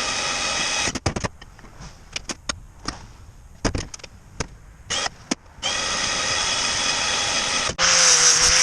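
Power tool motor whirring in short runs, with sharp clicks and knocks of metal being handled between them. A louder, hissier machine sound starts near the end.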